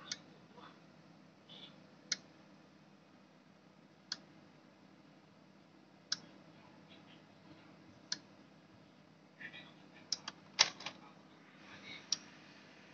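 Relay outputs of a Keyence KV-10R PLC clicking once every two seconds as its two-second timer program switches them. A few irregular, louder clicks and knocks come about ten seconds in.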